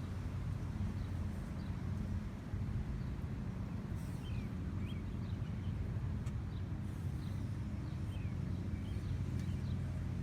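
A steady low hum with small birds chirping now and then, and a few faint clicks.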